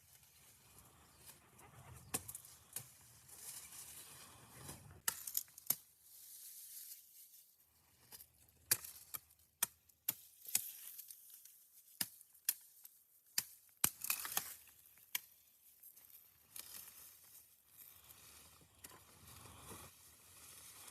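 Scattered sharp taps and clicks, irregularly spaced, with rustling and scraping between them.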